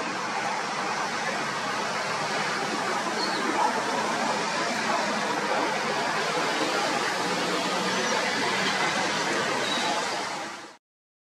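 A steady rushing outdoor noise with a few faint, short gull calls over it. The sound cuts off abruptly near the end.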